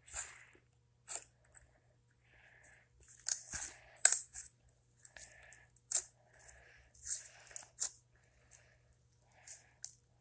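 Irregular short crackles and rustles, with a cluster of louder snaps a little past the middle.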